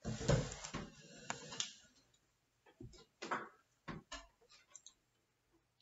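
Handling noise close to the microphone: a flurry of knocks and rustling for about the first two seconds, then a few scattered light clicks.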